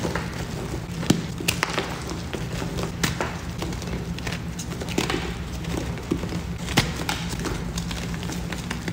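Blocks of gym chalk being crumbled and squeezed by hand: dry crunching with several sharp snaps as pieces break apart.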